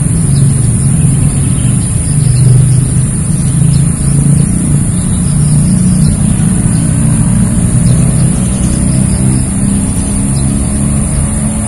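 An engine running, a loud, steady low hum whose pitch drifts and rises slightly in the second half, over a constant high-pitched whine.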